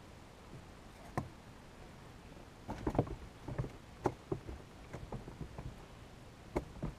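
Irregular light knocks and clicks in a small fishing boat: a single one about a second in, a run of them in the middle, and another near the end.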